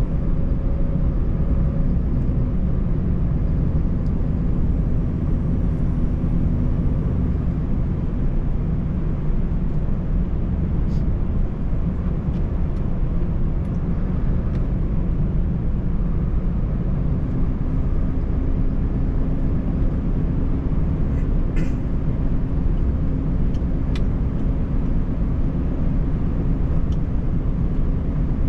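Scania 590S truck's V8 diesel engine and tyres droning steadily on a snowy road, heard inside the cab. A few faint clicks come through the rumble.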